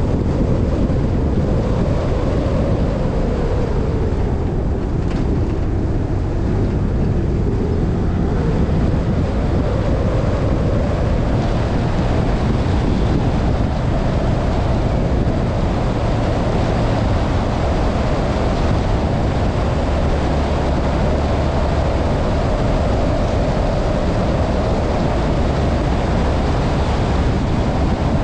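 Car driving on a gravel road: steady engine and tyre-on-gravel noise, with the engine note drifting slowly up and down.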